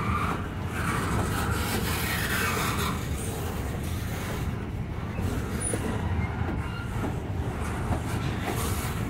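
Norfolk Southern freight gondola cars rolling past, their steel wheels running on the rails with a steady rumble.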